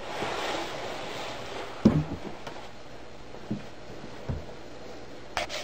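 Handling noises: a rustle, then one sharp knock about two seconds in and two softer knocks, with a few clicks just before the sound cuts off.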